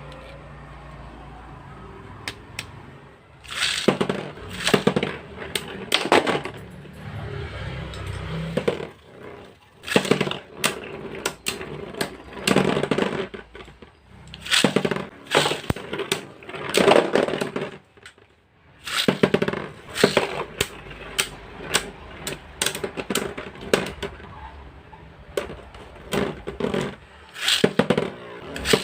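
Spinning tops built from LEGO bricks clashing in an arena: bursts of rapid plastic clacking and clattering collisions, coming and going with short lulls between.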